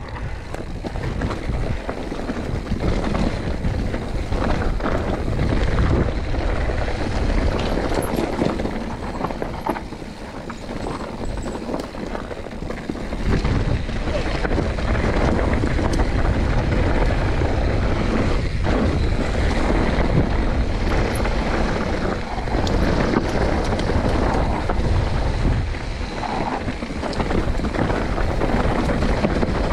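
Wind buffeting the microphone over a constant rumble and rattle of a mountain bike running down a rough dirt trail, with many small knocks from the bike. It dips a little for a few seconds near the middle.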